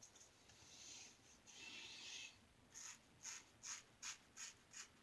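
Faint scratchy strokes of a Star Lather Catcher single-edge safety razor with a GEM blade scraping across the face, about two a second in the second half, after a softer scratchy hiss.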